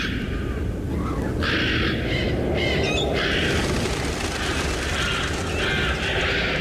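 Harsh, rasping calls repeated about once a second, over a steady low rumble.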